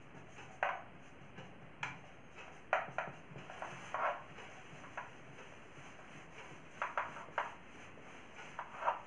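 Marker pen writing on a whiteboard: short, irregular strokes, a dozen or so, as letters are written.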